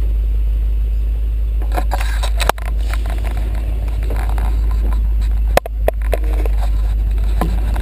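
A vehicle engine idling with a steady low rumble, broken by two sharp clicks, one about a third of the way in and one later on.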